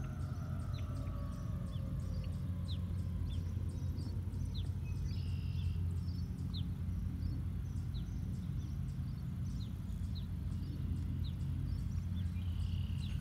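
Distant Federal Signal 2001-130 outdoor warning siren winding down, its falling tone fading out within the first few seconds. Short high bird chirps repeat about once a second over a steady low background rumble.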